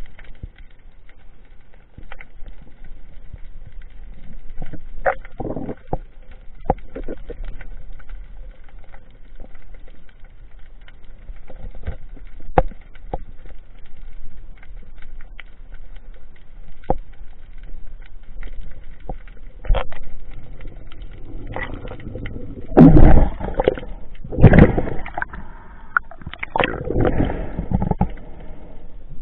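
Underwater sound picked up by a freediver's camera: scattered sharp clicks and knocks over a low background. In the last several seconds come loud rushes and sloshes of water as the diver rises to the surface.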